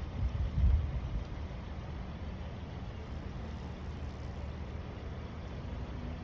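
Steady low outdoor rumble, with a louder surge of rumble just under a second in.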